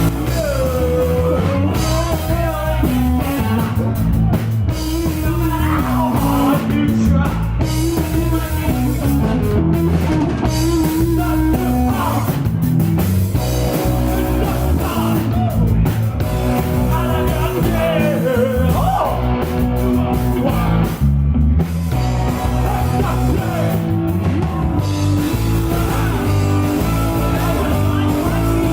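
Rock band playing live: electric guitar and drum kit, with a voice singing over them.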